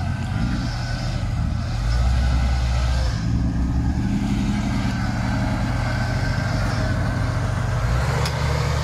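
Off-road 4x4 truck engine running at low speed, its note shifting up and down a few times with the throttle.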